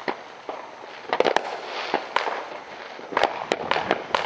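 Fireworks going off all around: a string of sharp bangs and cracks, bunched into quick clusters about a second in and again past three seconds, over a steady crackle of more distant fireworks.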